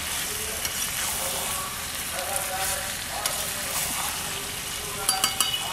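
Chicken pieces in thick spice masala sizzling in a frying pan as a spatula stirs and scrapes them through the pan: the slow frying ('kosha') stage of a chicken curry. Near the end the spatula knocks against the pan a few times in quick succession.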